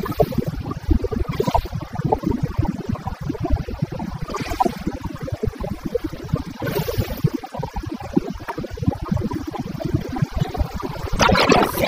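BMW F800GS parallel-twin engine idling at a standstill, a dense uneven low chugging, with a brief louder rush of noise near the end.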